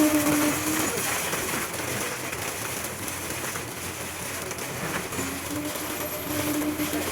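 Construction-site machinery during concrete placing: a steady mechanical hum over continuous rushing noise. The hum drops out about a second in and comes back about five seconds in.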